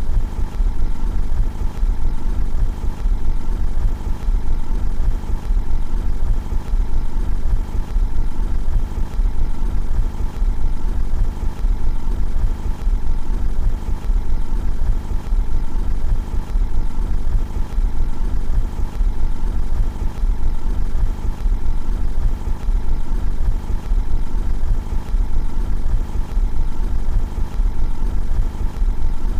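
Car engine idling steadily, heard from outside the car: an even, low rumble that does not change.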